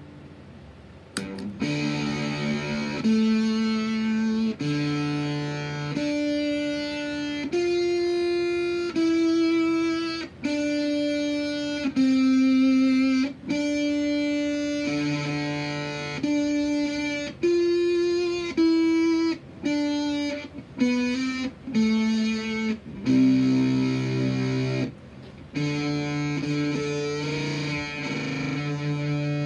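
Electric guitar played through a clone of the ZVex Machine crossover-distortion pedal. After a faint first second it plays a slow line of held notes and a few double-stops, each ringing for a second or two with a dense, buzzy set of overtones, with short breaks between phrases.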